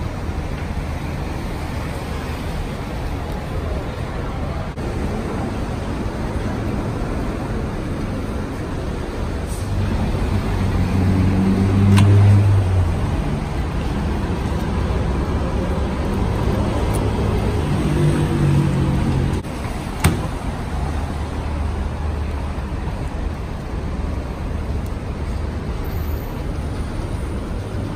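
Street traffic noise with a steady low rumble, and a deeper vehicle engine swelling past twice, about ten seconds in and again near eighteen seconds. A single sharp click comes about twenty seconds in.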